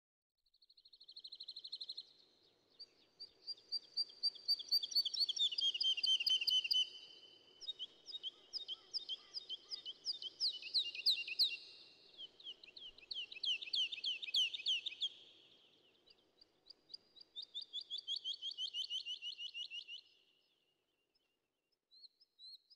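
Songbirds singing: long, fast trills of repeated chirps in overlapping phrases a few seconds each, dying away about twenty seconds in, then a few short chirps near the end.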